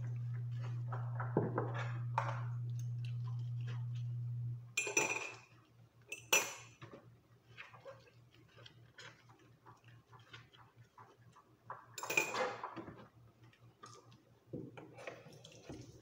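Dishes and cutlery clinking and clattering in a kitchen sink during hand washing, with a few louder clatters about five, six and twelve seconds in. A steady low hum runs under it and cuts off suddenly about four and a half seconds in.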